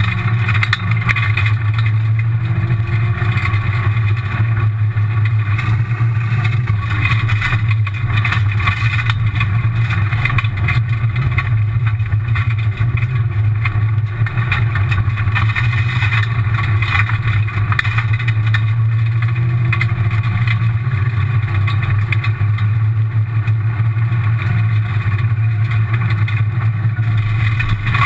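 A rally car's engine heard from inside the stripped cabin, running hard with small rises and dips in pitch, over a steady rumble of tyres on gravel.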